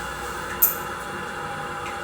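Water running steadily into a toilet flush tank as it refills after a flush, a continuous hiss. A single sharp click about half a second in.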